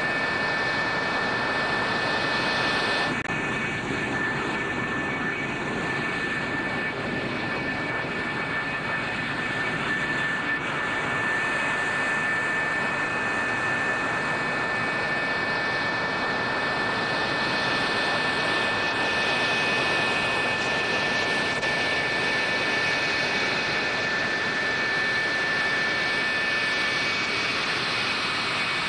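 F-104 Starfighter J79 turbojets running on the ground: a steady jet rush with a thin, high, steady whine over it.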